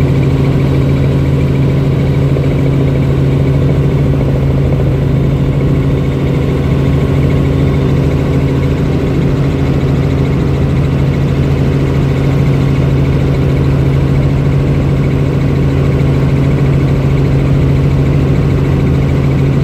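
Helicopter in flight, heard from inside the cabin: engine and rotors running at a steady drone, with a strong low hum and several steady tones above it that do not change.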